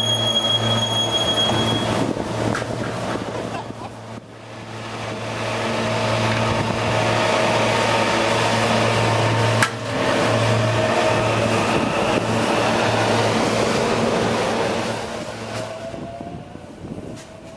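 SEPTA Silverliner electric multiple-unit train running past with a steady electric hum and wheel noise, then fading as it moves away. There is a single sharp click about ten seconds in, and a short rising whine near the end.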